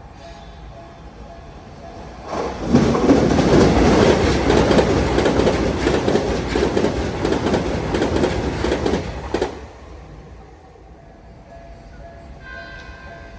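Electric commuter train passing at high speed: it comes in sharply about two and a half seconds in, rumbles and clatters over the rail joints for about seven seconds, then dies away.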